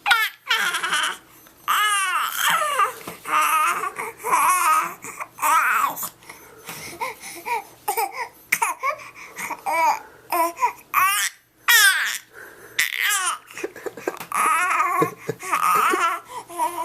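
A baby babbling and squealing in many short, high-pitched vocal bursts, the pitch sliding up and down, with brief pauses between.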